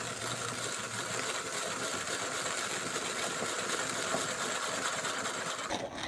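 Vintage PeDe (Peter Dienes) manual conical burr coffee grinder being hand-cranked, its burrs crunching coffee beans at the finest setting in a steady, dense grinding noise. The grinding stops suddenly near the end, once all 7 grams are through after about 22 turns of the handle.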